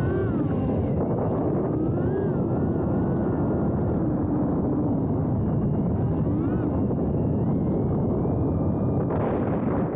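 FPV quadcopter's brushless motors and propellers whirring in flight, mixed with heavy wind rush on a camera mounted on the drone. The motor whine rises and falls in pitch as the throttle changes, and gets brighter and harsher about nine seconds in.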